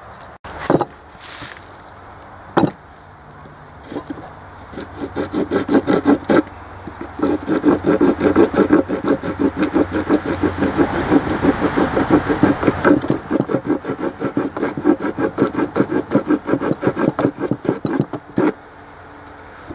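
Homemade handle broach, an old worn-out file with teeth cut into it, rasping back and forth in a wooden handle blank to cut out the slot for a hidden tang. A few knocks come first, then quick rhythmic strokes start about five seconds in and stop with a knock shortly before the end.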